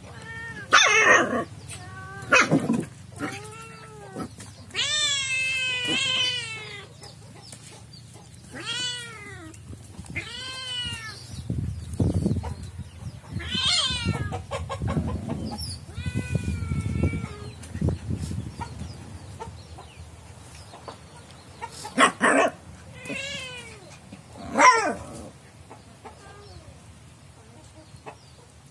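Young cat meowing and yowling repeatedly in drawn-out wailing calls, protesting as a puppy paws and jumps at it. A few short harsh bursts come near the start and again at about 22 and 25 seconds, and a low rumble sits under the calls in the middle.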